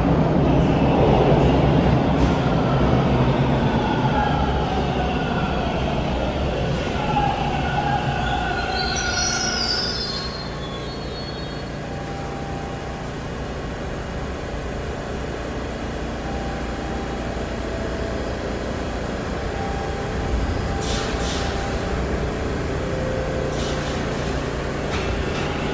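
TTC Bombardier T1 subway train slowing to a stop: its motors whine downward in pitch over about ten seconds, with a brief high wheel squeal about nine seconds in. It then stands with a steadier hum, and there are a few sharp clicks near the end.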